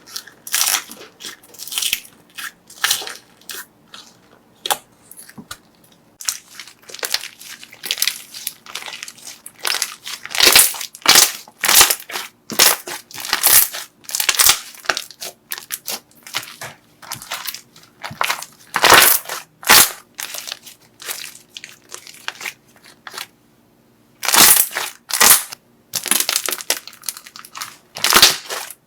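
Slime being handled, giving dense, irregular crunching and crackling, with a short pause about two-thirds of the way through.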